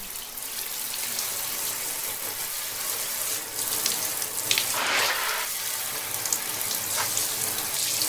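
Bathroom tap running water into a sink as a steady rush, swelling louder for about a second near the middle.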